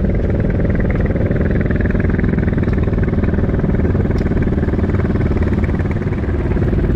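Motorcycle engine running steadily under way, its pitch holding level.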